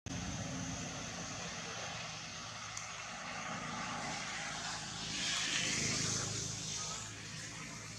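Distant engine drone from a passing vehicle, steady throughout and swelling louder about five seconds in before fading.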